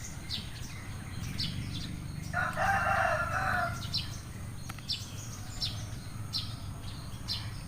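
A rooster crows once, starting about two and a half seconds in and lasting about a second and a half, while small birds chirp with short high notes throughout.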